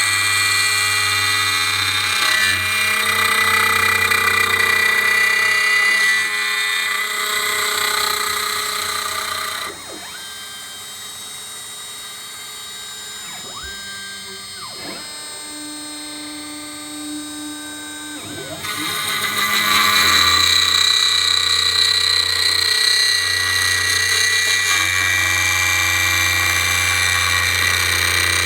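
CNC router spindle with a 1/4-inch bit cutting clear heart redwood: a loud, steady whine. About ten seconds in the cutting stops for some eight seconds, leaving a quieter running sound with a few tones that glide up and down as the machine moves, and then the cutting resumes.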